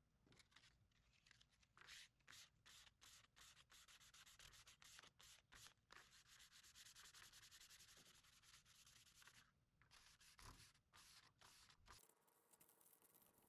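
Faint sanding sponge scrubbing by hand over thin laser-cut wooden panels to clean off smoke marks left by the laser. Quick back-and-forth strokes, about two or three a second, run together into steady rubbing in the middle, pause briefly, then resume and stop about twelve seconds in.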